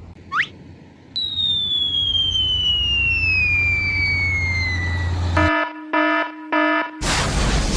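Edited-in cartoon sound effects: a quick rising whistle, then a long falling whistle over a low hum like a dropping bomb, a short run of rapid beeps, and a loud explosion near the end.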